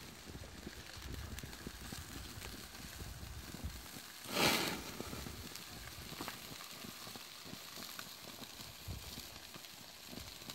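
Trout and zucchini sizzling faintly over hot charcoal, with scattered small crackles. About four seconds in, a brief louder rush of noise swells and fades within half a second.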